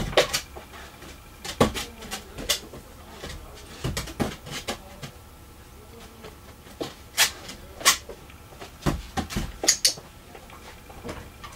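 Scattered knocks and clicks of a dog's paws and claws on an aluminium case as it steps onto the lid, stands and shifts its feet, then steps its front feet down onto the rug. The sharpest knocks come near the start and again from about seven to ten seconds in.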